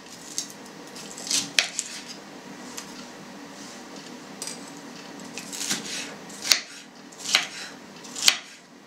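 Kitchen knife cutting a red bell pepper on a cutting board: irregular sharp taps as the blade meets the board, about one a second, the loudest near the end.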